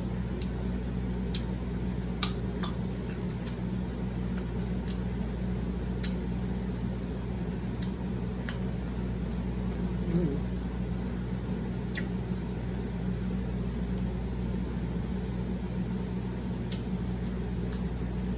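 A person chewing food close to the microphone: sporadic sharp mouth clicks and smacks over a steady low electrical or fan hum.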